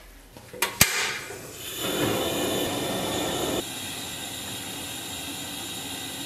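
A wok of water with pork belly pieces at a rolling boil over a gas burner, blanching the meat: a steady bubbling hiss. A single sharp click comes a little under a second in.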